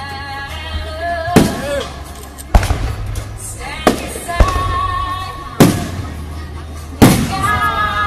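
Aerial firework shells bursting: six loud booms, one to one and a half seconds apart, each with a short echoing tail. Music with sustained tones plays underneath.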